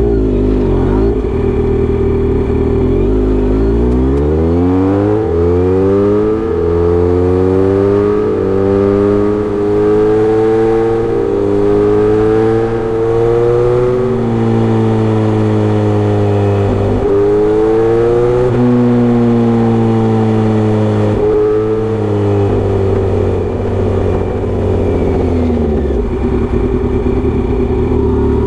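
Kawasaki Z900RS inline-four through a Misty Kintaro short-pipe aftermarket muffler. It idles at first, then pulls away and accelerates through the gears, its pitch stepping at each shift. It holds at cruising revs with a few quick blips and drops, then eases off back to a steady idle near the end.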